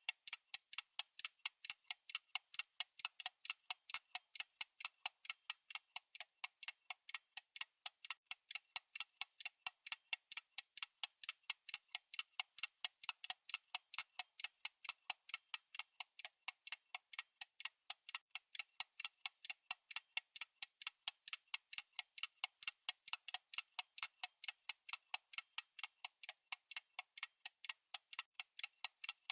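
Steady clock-style ticking sound effect of a countdown timer: short, sharp, evenly spaced ticks, several a second, with no break.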